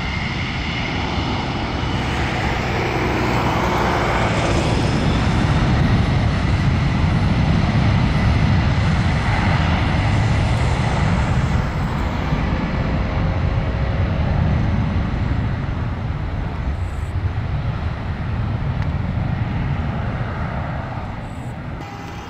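Four jet engines of a Boeing 747-400F freighter at takeoff thrust during its takeoff roll: a dense, steady jet noise with a faint high whine at first, growing louder over the first few seconds and slowly easing toward the end as the aircraft rolls away.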